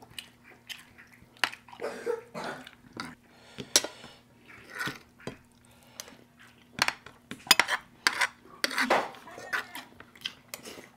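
Plates and utensils clinking and scraping during a meal, with sharp clinks at irregular intervals and softer eating noises between them.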